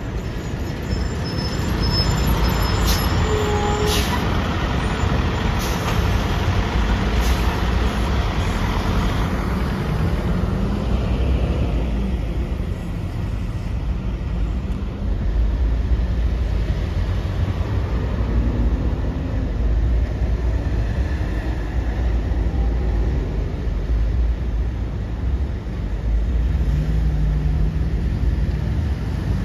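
Road traffic with heavy trucks passing close: a steady low rumble of engines and tyres. A few clanks and a short hiss come a few seconds in.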